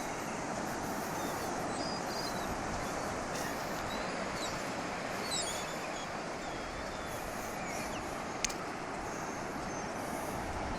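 Steady rush of surf and wind at the shore, with short high bird calls chirping now and then over the first several seconds, and a single sharp click about eight and a half seconds in.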